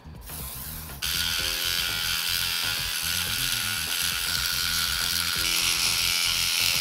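Steady, high-pitched abrasive hiss of a white resin garage-kit part being sanded. It starts faintly and jumps much louder about a second in, with background music underneath.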